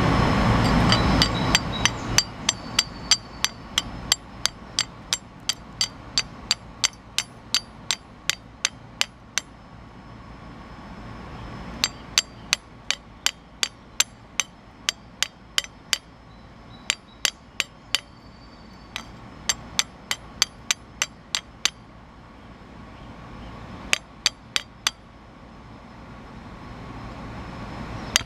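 Hammer knocking the slag (flux) off a freshly welded mild steel butt joint: sharp metallic strikes in runs of about three to four a second, with short pauses between runs. A rushing noise fades out in the first two seconds.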